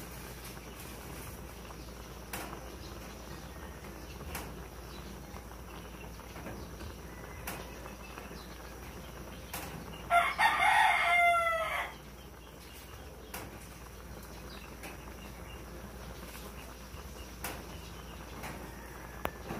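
A rooster crowing once, about ten seconds in, a single call lasting roughly two seconds.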